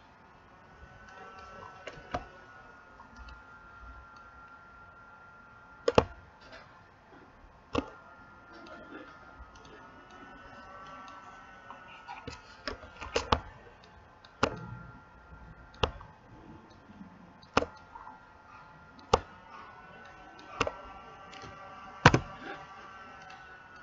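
Computer mouse clicking: about ten sharp, separate clicks at irregular intervals. A faint wavering tone runs underneath.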